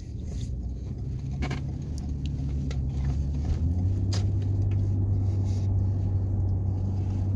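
Engine and road noise inside a Toyota SUV's cabin while it drives: a steady low drone that grows louder as the car gathers speed, its pitch stepping up about three and a half seconds in. A few light clicks sound over it.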